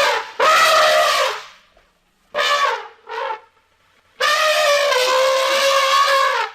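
Monster vocal sound effects for a fantasy creature, layered from animal and dinosaur calls: a string of loud, horn-like pitched calls. A call of about a second comes first, then two short calls falling in pitch, then a longer held call near the end.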